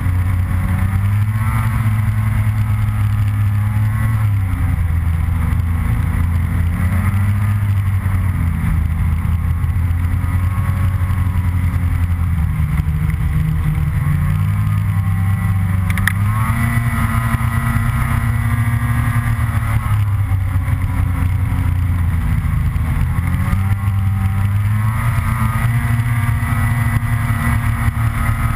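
Snowmobile engine running under way, its pitch rising and falling again and again with the throttle. A single sharp knock comes about halfway through.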